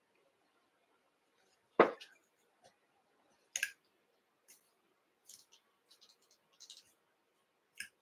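Fly-tying tools and a rotary vise being handled: a knock about two seconds in, a sharp click a couple of seconds later, then scattered light ticks and clicks.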